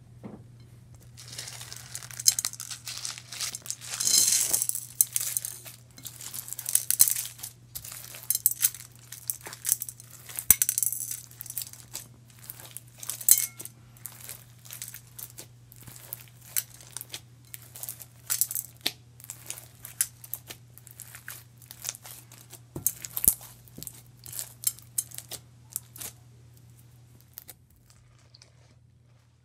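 Blue clear-glue slime packed with fishbowl beads and glitter being squeezed and kneaded by hand: a dense, irregular run of crackles and pops that thins out near the end, over a faint steady low hum.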